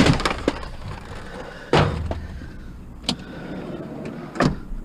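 Four separate sharp knocks and thumps, a second or so apart, of hard objects being handled and set down, over a low steady background rumble.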